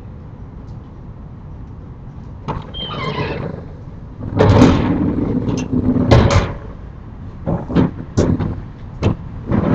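Sliding storm shutters (amado) on an upper floor being run along their tracks: a scraping slide with a brief squeak about two and a half seconds in, then a loud rattling, rumbling slide, then several sharp knocks as the panels bang into place.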